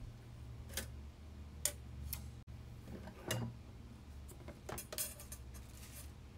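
Quiet light knocks and clicks of a kitchen knife and a plastic cutting board being set down on a counter, a handful of separate taps with a quick cluster just before the end, over a faint low hum.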